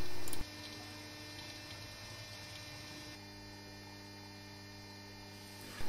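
Steady electrical mains hum, a low even drone whose tone changes about three seconds in.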